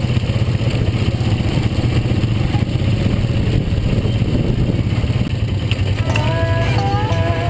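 ATV engine running steadily, a loud, even drone. A melody comes in about six seconds in.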